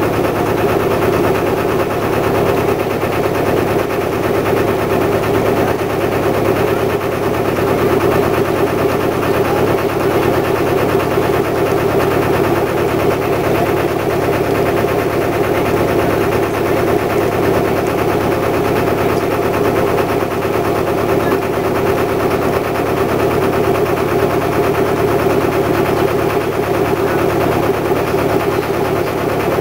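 Narrowboat's diesel engine running steadily at slow canal cruising speed, with a fast, even beat.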